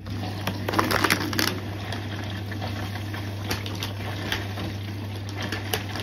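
Siemens washing machine taking in water: a steady low hum from the inlet valve with water rushing, starting suddenly, and a few light clicks about a second in.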